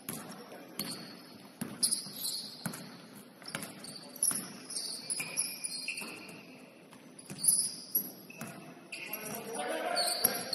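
Basketball sneakers squeaking in short, high chirps on a hardwood gym floor, scattered throughout. A basketball is dribbled, its bounces coming as sharp knocks on the court.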